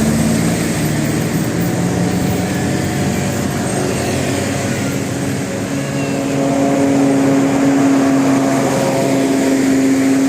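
A large vehicle's engine running with a steady low drone, a little louder from about six seconds in.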